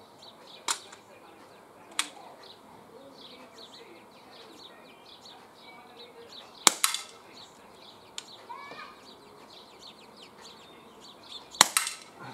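Smith & Wesson M&P R8 CO2 revolver firing pellets, double action: four sharp pops at uneven intervals, the last two loudest with a short ringing tail.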